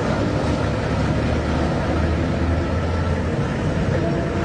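Steady low rumble and hiss of a vehicle running, without pause or change.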